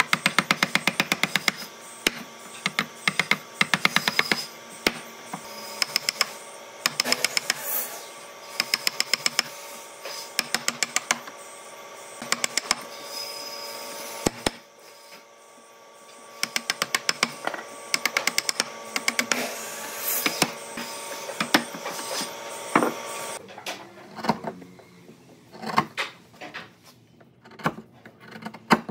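Woodworking tool work: repeated bursts of rapid, sharp mechanical clicking, several clicks a second, over faint steady tones, breaking off into scattered knocks near the end.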